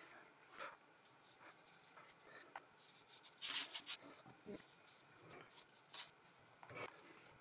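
Paintbrush scratching faintly across paper in short strokes, with a louder brushing rustle about three and a half seconds in.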